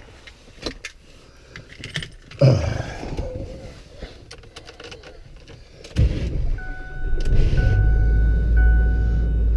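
Clicks and rustling, then a vehicle engine cranks and starts about six seconds in and settles into a steady low running. A warning chime beeps about once a second.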